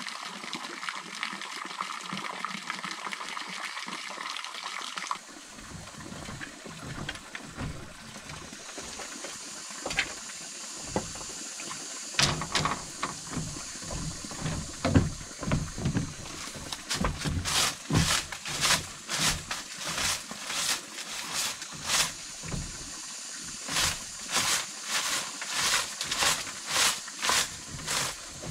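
A steady rushing noise that stops suddenly about five seconds in, then a run of sharp knocks that builds into a steady beat of about two a second.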